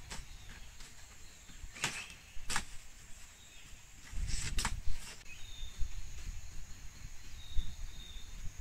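A knife slicing through roof thatch of layered leaves in about five quick, sharp strokes, over a steady high insect drone. In the second half only the insect drone goes on, with a few short bird chirps.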